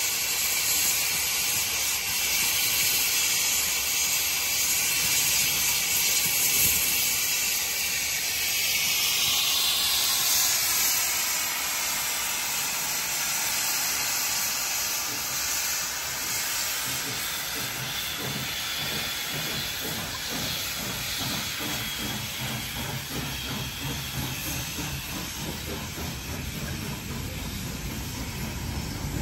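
Steam hissing loudly and steadily from the cylinder drain cocks of NSW AD60-class Beyer-Garratt steam locomotive 6029 as it passes, slowly fading as it draws away.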